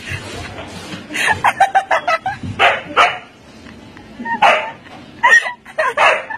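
Siberian husky barking and yipping: a quick run of short yips about a second in, then single barks every second or so.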